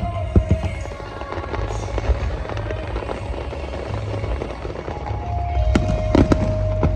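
Fireworks shells bursting with sharp bangs and crackles over a low rumble, with music playing alongside.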